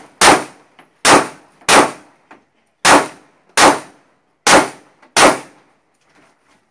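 Seven pistol shots, each with a short ringing tail: a single shot just after the start, then three quick pairs of shots, the last pair about five seconds in.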